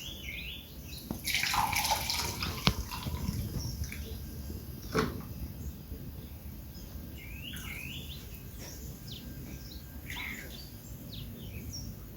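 Brewed coffee poured from a mason jar through a tea strainer: a splashing pour about a second in, then drips and a couple of sharp clicks. Small birds chirp on and off.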